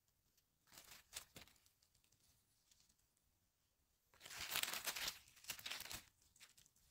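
Dry pine needles, twigs and leaf litter rustling and crackling as a hand reaches into the forest floor to pick chanterelle mushrooms. There is a short patch about a second in and a longer, louder one from about four to six seconds in.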